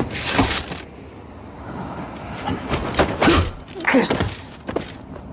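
Sword-fight sound effects: about half a dozen quick katana swishes and hits in a run, the biggest about half a second in, with short grunts of effort among them.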